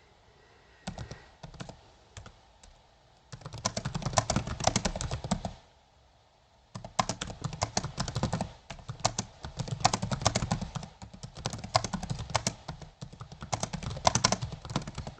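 Typing on a computer keyboard: a few separate keystrokes, then two long runs of rapid key clicks with a short break about six seconds in.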